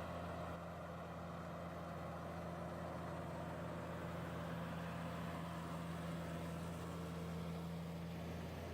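Tractor engine running steadily at a constant speed, a low even hum with no change in pitch.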